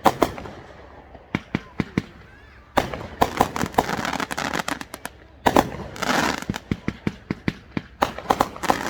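Fireworks going off: a run of sharp bangs mixed with dense crackling, coming in spells a couple of seconds apart.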